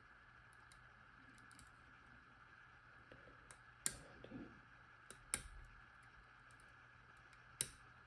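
A few sharp clicks from a disc-detainer pick turning the discs inside an Abloy disc-detainer padlock during picking, with three louder clicks spread over the second half.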